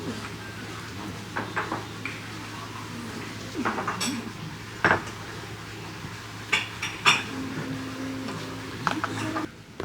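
Dishes and cutlery clinking: about eight separate light clinks and knocks, spread unevenly, over a steady low hum.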